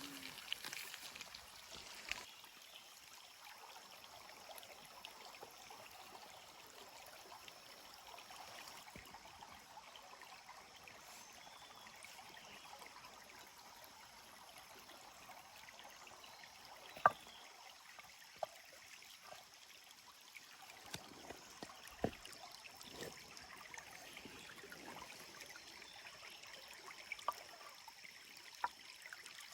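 A small stream flowing steadily, heard faintly. It is broken by a few sharp clicks, the loudest about halfway through.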